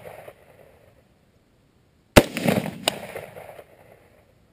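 A single rifle shot about two seconds in, followed under a second later by a fainter second crack, then a fading echo.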